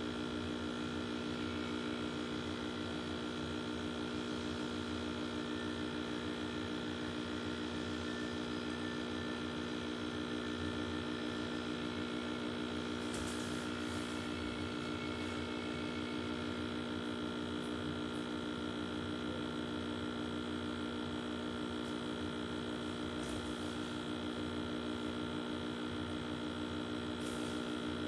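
Steady electrical mains hum and buzz from an old CRT television, an unchanging chord of low tones, with a few faint brief ticks.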